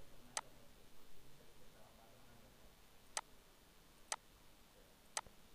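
Computer mouse button clicking: four single sharp clicks spread a second or more apart, faint against quiet room tone.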